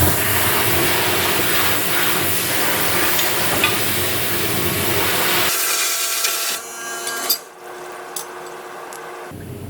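Steady, loud rasping of hand-tool work on the old forge's metal parts. It changes abruptly about five and a half seconds in, with a sharp knock shortly after, and drops off near the end.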